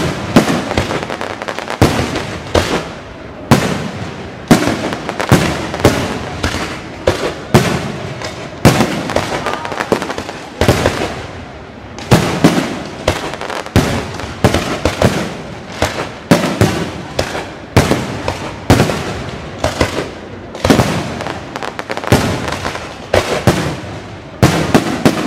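Fireworks display: a dense run of aerial shells bursting, with sharp bangs about one to three a second, each trailing off in crackle and echo.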